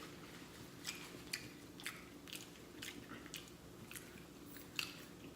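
A person chewing food with wet mouth smacks close to the microphone, about two smacks a second, the sharpest one near the end.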